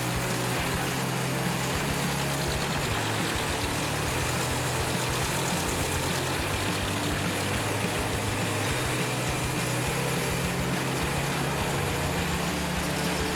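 Wood chipper running steadily: a low engine hum whose pitch shifts a little a few times, under a dense hiss of wood being chipped.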